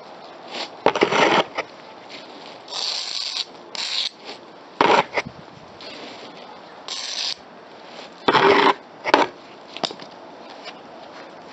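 Plastic bag crinkling and rubbing in short, irregular bursts as hands press and work it over a fresh cement patch on a concrete step. The bursts stop about ten seconds in.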